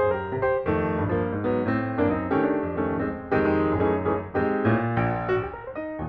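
Background piano music: a steady flow of notes and chords.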